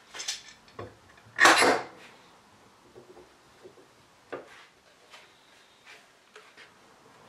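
Bench handling sounds: a small plastic spring clamp and a flat board being handled on a wooden workbench. There are light clicks and knocks throughout, and a louder scraping knock of about half a second roughly a second and a half in.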